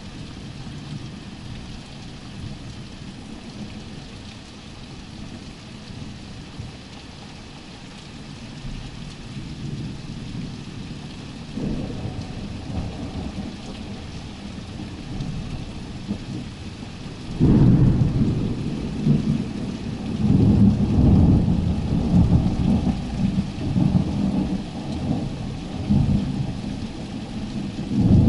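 Thunder rolling over steady rain: a low rumble through the first half, then, about two thirds of the way in, a loud rolling peal that swells and eases several times.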